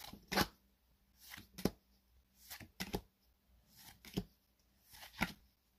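Pokémon trading cards being flicked through one by one in the hand, a short papery snap about once a second as each card is slid off the stack.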